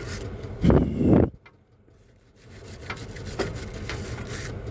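Rubbing and scraping on a brake caliper bracket as its surfaces are worked by hand during a brake pad change. There is a loud rough burst about a second in, a short pause, then steadier scratching with a few clicks.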